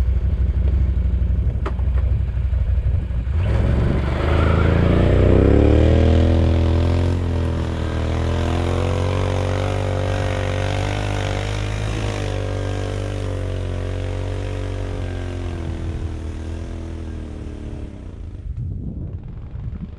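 ATV engine revving up hard about three and a half seconds in, then held at high revs under load while climbing a steep snowy hill, the note fading away near the end.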